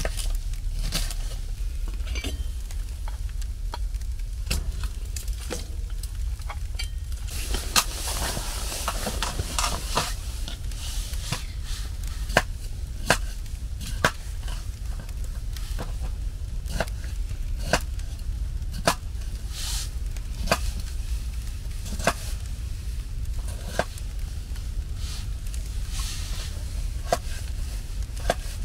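Cooking on a stove: irregular sharp clicks and crackles with a light sizzle, over a steady low rumble, while a pot of soup heats up.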